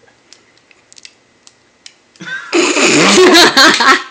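Handheld stun gun discharging against bare skin: a very loud, rapid electric crackle that starts about two seconds in and runs for about two seconds.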